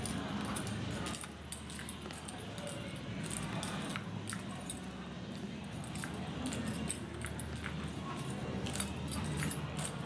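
Scattered light clicks and jingles over a steady low hum.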